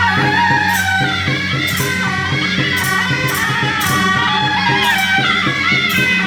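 Music: a wavering melody over a steady low drone and beat, with bright cymbal-like hits coming in pairs about once a second.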